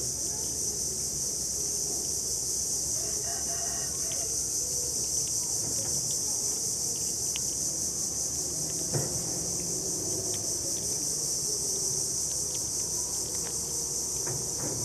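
Steady high-pitched insect chorus, with a distant rooster crowing briefly about three seconds in and a single knock near nine seconds.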